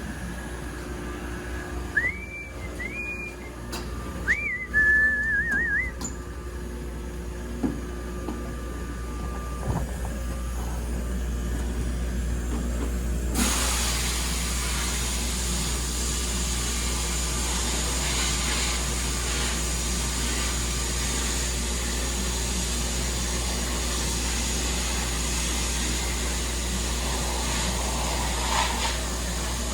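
A person whistles a few short rising notes over a low shop hum; about 13 seconds in, a sandblaster's air blast starts abruptly and runs on as a steady loud hiss.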